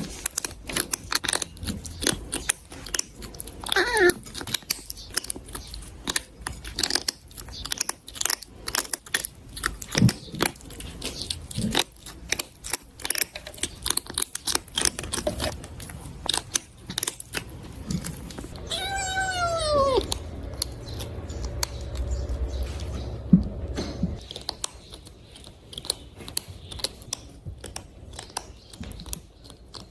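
A cat eating, chewing its food noisily with a dense run of quick crunching clicks. It gives a faint cry about four seconds in and one clear meow a little past the middle.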